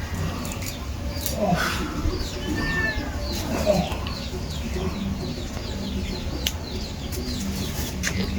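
Birds calling: many short high chirps throughout, with a few louder, lower calls about a second and a half and three and a half seconds in, over a steady low hum.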